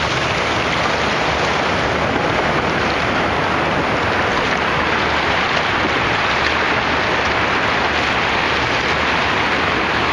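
Steady hiss of shallow surf washing over wet beach sand at the water's edge.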